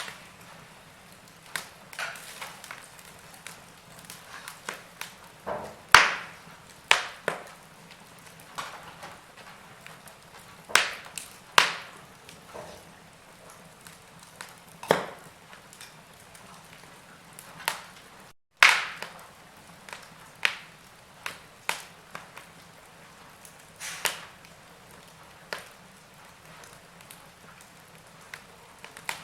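Wood fire crackling, with irregular sharp pops and snaps over a low steady background, a few much louder than the rest. The sound cuts out for a split second about two-thirds of the way through, then comes back with a loud pop.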